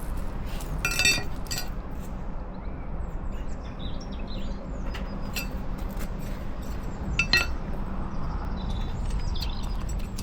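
Soil being raked through by hand during a potato harvest from a grow bag, with two sharp ringing metallic clinks, one about a second in and another about seven seconds in. Faint bird chirps come in between.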